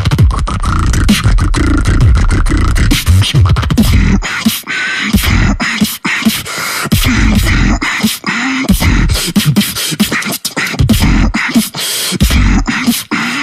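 Human beatboxing: rapid, rhythmic mouth-made snare and hi-hat clicks over a heavy deep bass for the first few seconds. After that the bass comes and goes in short stretches, with hummed tones between them.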